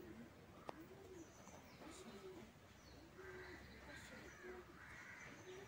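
Fantail pigeons cooing faintly: a run of low coos, roughly one or two a second, with higher chirps of other birds behind them and a single click under a second in.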